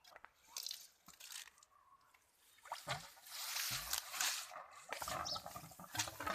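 Muscovy ducklings pecking at and gobbling tomato pulp: wet squishing and smacking. It is sparse clicks at first, then a dense run of wet crackling from about three seconds in.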